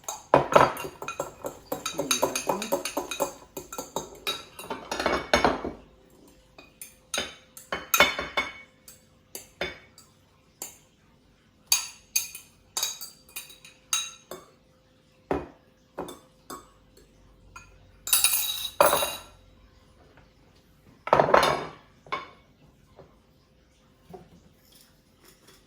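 Metal cutlery clinking and scraping against dishes as scrambled eggs are served out: a run of short knocks and scrapes, densest in the first six seconds, then in scattered clusters with quieter gaps. A faint steady hum sits underneath from about six seconds in.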